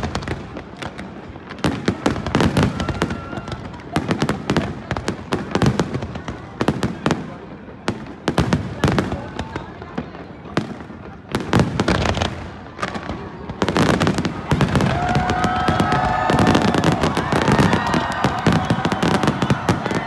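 Fireworks display: rapid volleys of shell bursts and crackling bangs in clusters every couple of seconds, becoming an almost continuous barrage in the second half, with crowd voices mixed in near the end.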